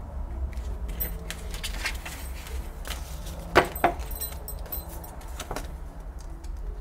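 Paper banknotes and a vellum cash envelope being handled: paper rustling and flicking with small clicks, and two sharp taps a little past halfway through.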